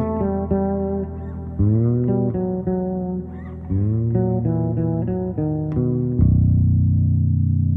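Music: a bass plays a melody whose notes slide up into pitch, then settles on a long held low note about six seconds in.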